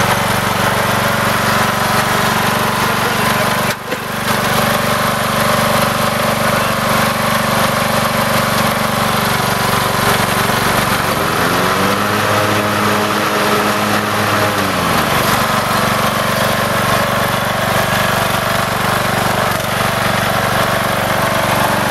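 Briggs & Stratton 15.5-hp engine of an MTD Bolens riding lawn mower running steadily as the mower is driven. The sound dips briefly about four seconds in. About twelve seconds in, the engine speed rises, and it drops back about three seconds later.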